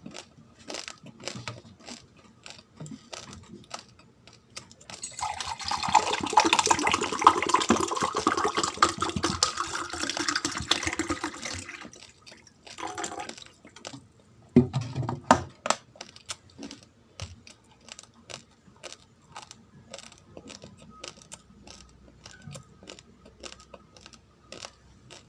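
Raw rice being crunched between the teeth: sharp, irregular crackling clicks. From about five seconds in until about twelve seconds, a dense, loud rattle of dry grains.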